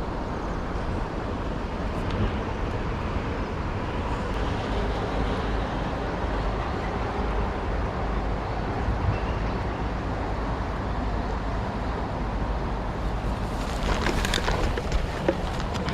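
Steady rush of a mountain stream, with a deep rumble underneath, and a short spell of rustling and clicks near the end.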